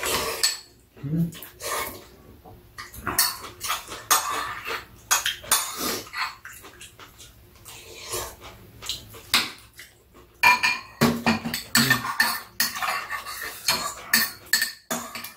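Metal spoons clinking and scraping against ceramic soup bowls and a metal frying pan as two people eat, in many irregular clicks and knocks.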